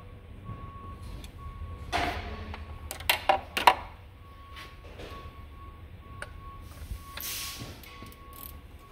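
A few sharp metallic knocks of tools against engine parts, three in quick succession a little after three seconds in, over faint background music.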